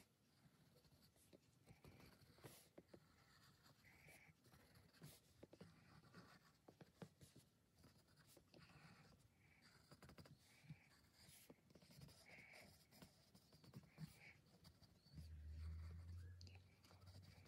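Faint scratching of a pencil on paper in short, irregular strokes as a figure is sketched and shaded. A low hum comes in for about two seconds near the end.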